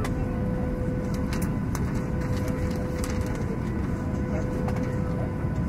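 Steady wind rush with a constant whine from the Bixler 2's electric motor and propeller, heard from a camera riding on the RC plane in flight.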